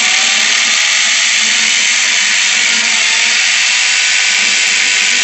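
Makita-branded electric hand drill running steadily while boring into a panel.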